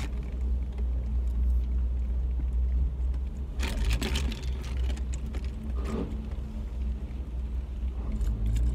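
Steady low rumble of a car's idling engine, heard from inside the cabin, with a few short slurps and rustles from a drink being sipped through a straw from a paper cup, around four and six seconds in.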